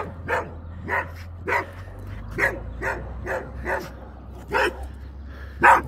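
Husky-type mother dog barking over and over, about nine short sharp barks roughly half a second to a second apart, the last near the end the loudest. They are the agitated barks of a mother dog whose pup has been killed on the road.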